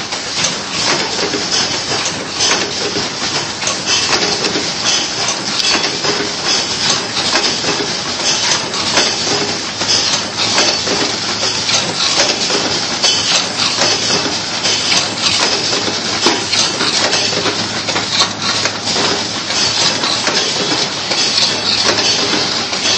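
Full-automatic biscuit cartoning machine running: a continuous clatter of rapid mechanical clicks and knocks over a steady hiss and a low hum.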